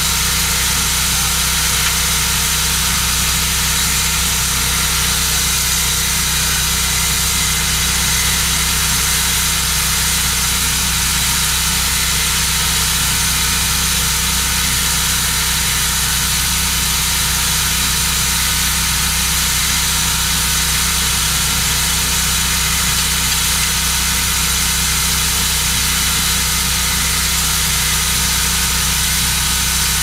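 A sawmill's 30-horsepower Kohler engine running steadily at idle, with no change in speed.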